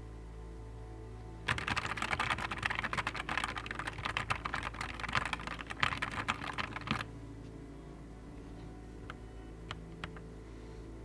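Fast typing on a Nuphy Air 75 V2 low-profile mechanical keyboard: a dense run of rapid key clacks for about five seconds, then a few single key presses near the end.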